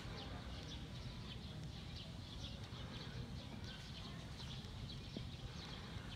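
Prairie dogs chewing grass stems: a run of quick, irregular crunching clicks over a low outdoor rumble.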